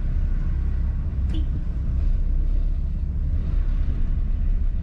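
Steady low rumble of a car's engine and tyres at low speed, heard from inside the cabin, with a brief high squeak about a second in.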